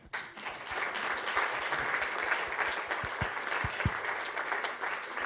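Lecture-theatre audience applauding, a dense patter of many hands clapping that sets in at once and starts to thin out near the end.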